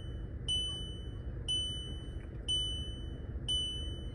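High-pitched electronic alarm beeping steadily about once a second, four beeps, over a steady low background rumble.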